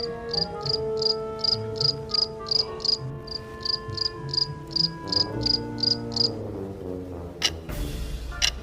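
Cricket chirping, about three chirps a second, stopping about six seconds in, over background music with held notes. It is the comic crickets effect for an awkward silence. A few sharp clicks come near the end.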